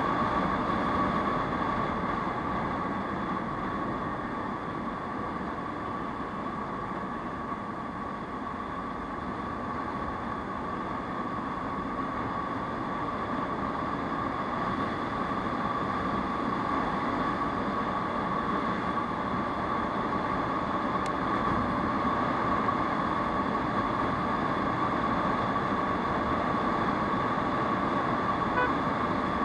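Aprilia SR 150 scooter's single-cylinder engine running at cruising speed, mixed with steady wind and road noise. It carries a constant high whine, eases slightly about a quarter of the way in, then builds back up.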